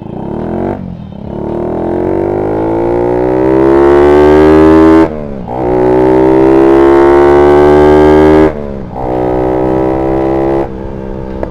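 Honda Sonic 150R's single-cylinder four-stroke engine accelerating hard through the gears, its oxygen sensor unplugged: the revs climb in each gear and drop back at three upshifts, about one, five and eight and a half seconds in. Near the end the throttle is shut and the engine note falls.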